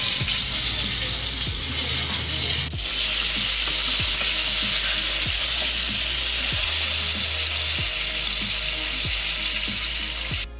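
Battered karaage pieces deep-frying in a pan of hot oil on their second fry: a steady, dense sizzle of bubbling oil.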